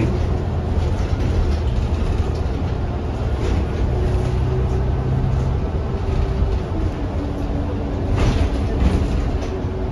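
Inside a New Flyer XD40 diesel city bus on the move: steady low engine and road rumble with a faint whine that steps down in pitch about halfway through, and a short rattle or bump about eight seconds in.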